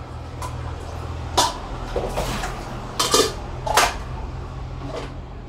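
Kitchenware clattering at a steel sink: a metal pot and an electric kettle set down and handled, with a handful of sharp clinks and knocks over a low steady hum.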